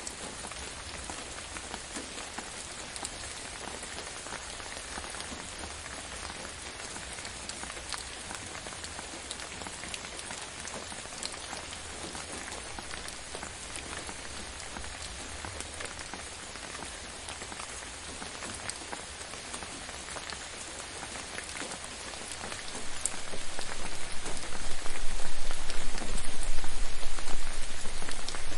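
Gentle rain falling steadily on a surface, an even patter of many small drops. About 23 seconds in, a deep low rumble swells underneath and the whole sound grows much louder.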